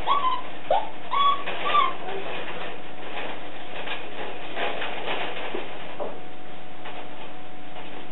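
A spoodle whining: a quick run of short, high, bending whimpers in the first two seconds, one sliding down in pitch, then only faint light clicks.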